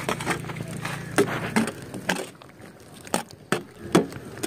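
Steel spoon stirring chocolate cereal in milk in a stainless steel bowl: irregular clinks and scrapes of the spoon against the bowl, the loudest about a second in and again near four seconds in.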